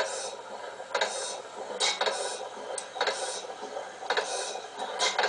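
1896 T. Melvin & Sons town gas engine of about 2 horsepower, running slowly with a regular beat of one short, sharp stroke about every second.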